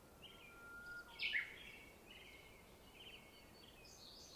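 Several small birds chirping and trilling, with one louder, quickly falling call about a second in and a thin held whistle just before it.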